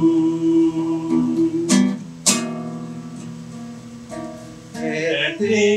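Acoustic guitar accompaniment between sung lines: held, ringing chords, with two sharp strums a little under two seconds in and just past two seconds. The chords die away, then the playing picks up again near the end.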